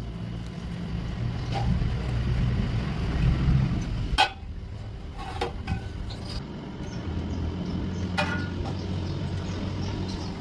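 A steady low machine hum, heavier in the first few seconds, with a few sharp knocks scattered through it.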